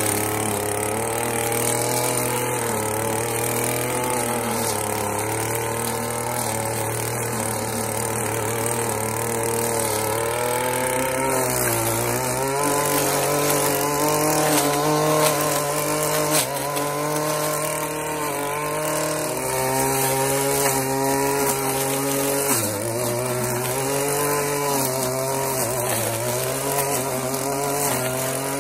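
Stihl FS 38 two-stroke line trimmer running at high speed, cutting through thick stinging nettles with square-profile line. The engine note wavers and dips briefly twice, about 12 and 22 seconds in, then picks up again.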